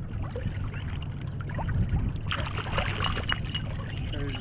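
Water splashing beside a kayak as a hooked kokanee salmon thrashes at the surface, with the busiest splashing about two and a half to three and a half seconds in.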